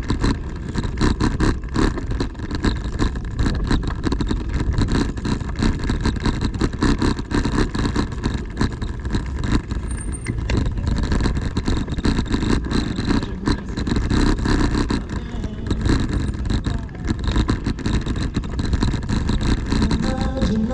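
Street noise recorded while walking: a steady low rumble on the microphone with frequent knocks from the camera being carried. Near the end a street musician's guitar and singing come in.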